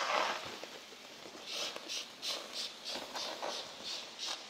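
Hand trigger-spray bottle squirting degreaser onto an air fryer's lid grille in quick repeated pumps, about three squirts a second, starting about a second and a half in.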